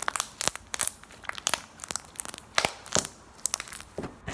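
Thick slime being squeezed and stretched by hand, giving an irregular string of short sharp pops and crackles.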